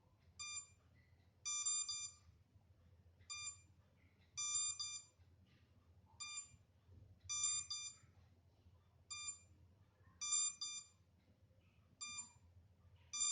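MJX Bugs 3 quadcopter giving its warning beeps: a short beep, then a longer stuttering one about a second later, the pair repeating about every three seconds. It signals that the drone has lost its link to the transmitter, and it serves as a locator tone for finding the drone.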